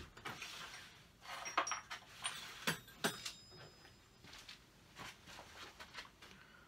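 Scattered knocks and clicks of hand tools being picked up and set down on a wooden workbench. Two of the clinks, about a second and a half in and about three seconds in, ring briefly like metal.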